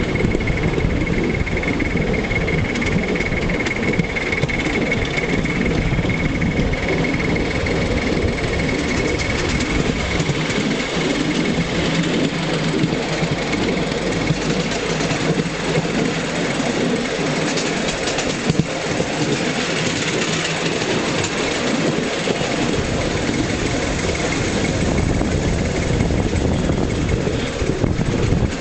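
Ride-on live steam miniature locomotive running along the track: a steady, busy mix of exhaust chuffing, wheels rattling on the rails and steam hiss. A thin high steady tone fades out after about eight seconds.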